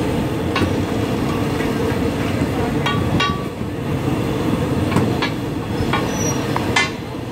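Steady low rumble of street traffic with scattered sharp knocks and clicks, one with a brief metallic ring about three seconds in.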